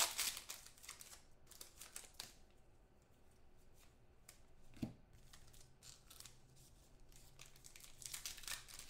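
Trading-card pack wrappers crinkling and tearing as card packs are opened and the cards handled. The handling comes in short spells near the start and near the end, with a quieter stretch in between.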